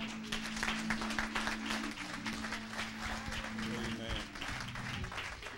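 Congregation applauding, a dense patter of many hands clapping, with a held low musical note underneath for the first few seconds.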